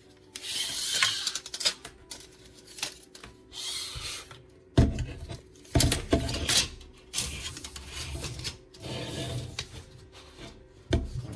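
Hands handling a small plastic sound bar and its cable on a tabletop: patches of rustling and rubbing, with several sharp knocks about five to seven seconds in.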